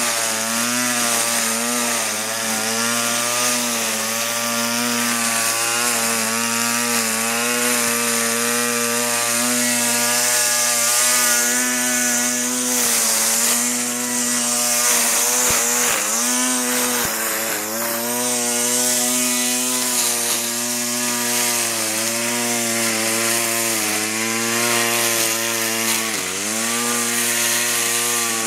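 Small two-stroke string trimmer engine running near full throttle, its note held steady, dipping briefly in pitch a few times as it takes load. The throttle trigger is rigged to run wide open all the time.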